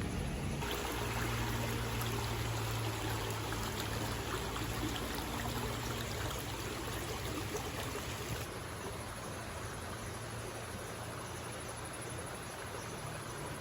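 River water flowing: a steady rushing noise. It grows brighter about half a second in and turns duller again about eight seconds in.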